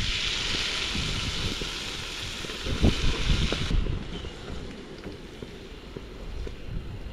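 Wind gusting against the microphone, an uneven low rumble. A steady hiss lies over it for the first few seconds and cuts off suddenly.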